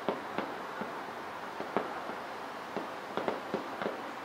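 Aerial fireworks bursting: a string of sharp, irregularly spaced bangs over a steady hiss, with a quick cluster of several about three seconds in.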